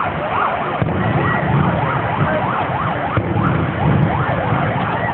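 An emergency-vehicle siren in fast yelp mode, its pitch sweeping up and down about two to three times a second, over a steady low rumble.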